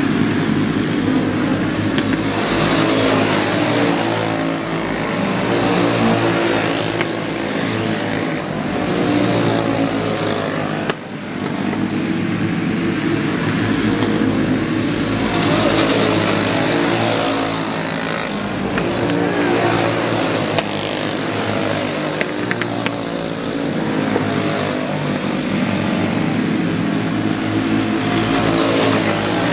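A pack of caged champ karts racing, several small engines overlapping and rising and falling in pitch as they accelerate, back off for the turns and pass by.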